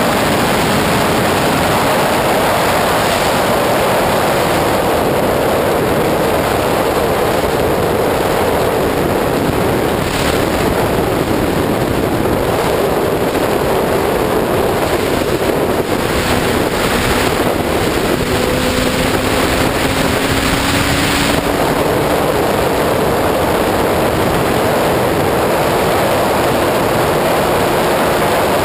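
Heavy wind rush at highway speed on a 2001 Suzuki GSX-R600 sport bike, with the inline-four engine's steady high-revving drone underneath, its pitch rising slowly over the last several seconds.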